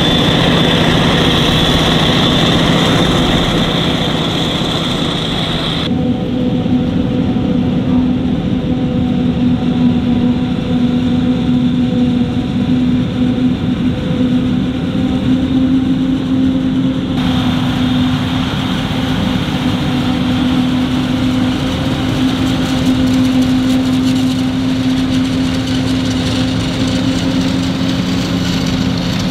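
Diesel engines of forage-harvesting machinery, a self-propelled forage harvester and tractors, running steadily during the maize harvest. The sound changes abruptly about six seconds in and again around seventeen seconds.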